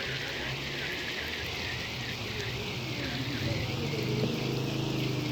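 Heavy rain falling on the ground and surfaces, a steady even hiss. A low steady hum joins about three and a half seconds in.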